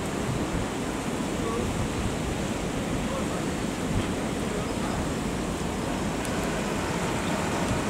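Steady rushing of a swollen, fast-flowing river running high and muddy through a stone-walled channel after a flood.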